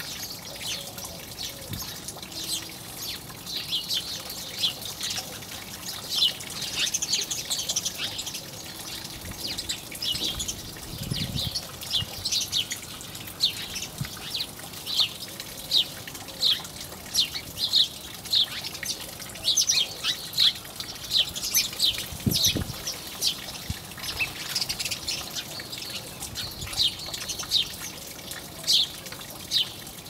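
House sparrows chirping, a steady run of short high chirps that comes thickest in the middle, over a constant trickle of water.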